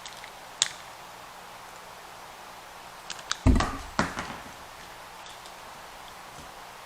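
Plastic toy parts clicking and knocking as a monster figure's arm is worked into its socket: a small click about half a second in, then a few light clicks and two louder knocks about three and a half and four seconds in.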